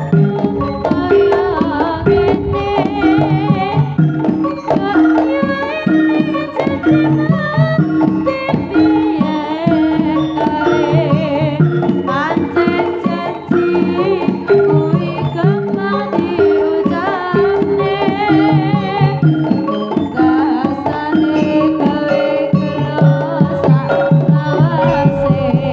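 Javanese jaranan music played live: kendang hand drums drive a steady rhythm under repeated gamelan metallophone notes, with a wavering melody line above.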